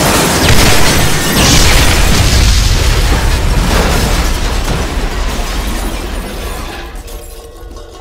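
A loud explosion sound effect. The blast peaks within the first second and a half, then its rumble fades slowly away over several seconds.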